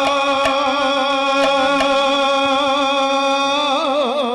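A pala singer holding one long, wavering note of a Jagannath devotional bhajan, which turns into quick ornamental bends near the end. A few light clicks sound behind it.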